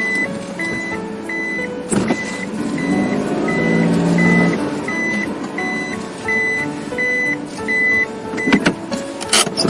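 A reversing alarm beeping steadily at one high pitch, about one and a half beeps a second, like a dumper truck backing up, over a tune of lower notes. A buzzing, engine-like sound swells up around the middle, and there are a couple of sharp knocks.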